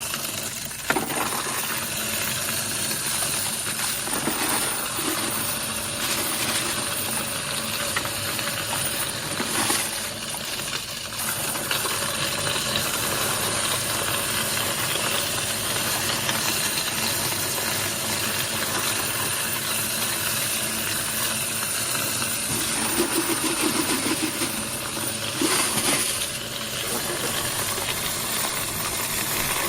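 Coins being poured into a coin-sorting machine: a continuous dense jingling clatter of coins running through it, with a few brief louder surges.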